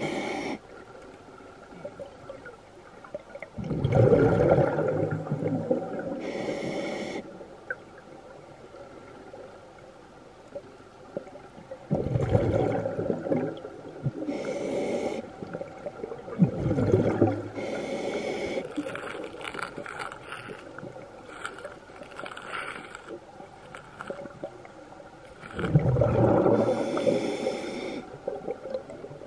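Scuba regulator breathing underwater. Four or five loud bubbling exhalations, a second or two each, with short high hisses from the demand valve on the inhale.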